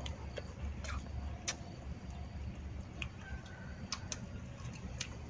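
A person eating: chewing a mouthful of grilled rat meat and rice, with scattered sharp clicks about a second apart over a low rumble.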